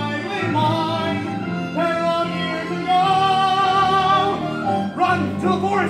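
Live operatic-style singing over instrumental accompaniment, the voice wavering with vibrato and holding one long note past the middle.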